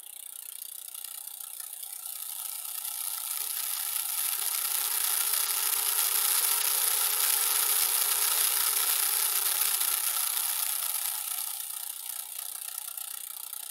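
Micro RC car's 4.1 mm DC drive motor and tiny gear train whirring as it spins the raised wheels. It speeds up over several seconds, runs at speed, then slows and fades near the end.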